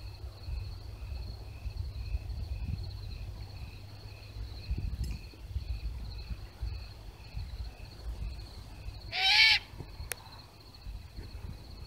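A great horned owl gives one short, harsh call with a pitch that rises and falls, about nine seconds in. Behind it crickets chirp in a steady pulse and a low rumble sits on the phone's microphone.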